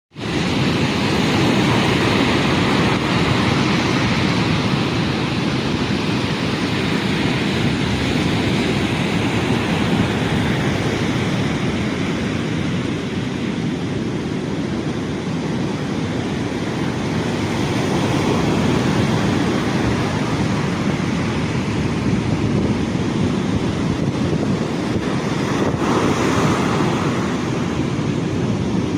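Heavy sea surf: big waves washing in as a steady, loud rush that swells now and then, with wind on the microphone.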